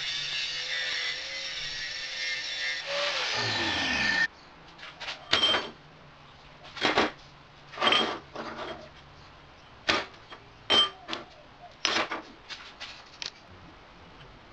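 A power grinder running on metal, its pitch falling steadily from about three seconds in as it winds down, until it stops just after four seconds. Then comes a run of irregular sharp metallic clinks and knocks, some with a short ring, as steel pieces are handled.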